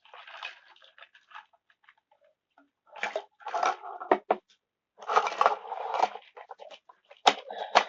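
Objects being handled and set down on a table: several bursts of rustling and scraping, and a few sharp taps or clicks, the loudest near the end.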